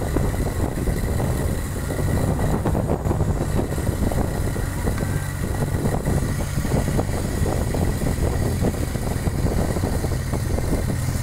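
Komatsu hydraulic excavator's diesel engine running steadily under load as its bucket pushes the stern of a beached boat across the sand.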